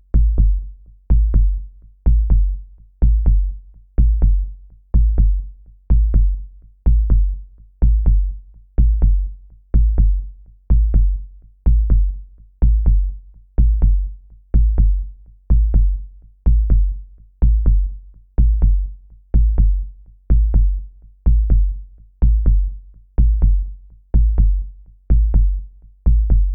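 Heartbeat sound effect: a steady lub-dub double thump, deep in the bass, repeating about once a second (roughly 60 beats a minute).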